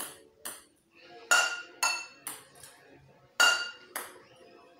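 A small ball thrown at metal saucepans, hitting them with ringing metallic clinks. Two loud ringing hits come about two seconds apart, each followed by a couple of lighter bounces, with a softer clink near the start.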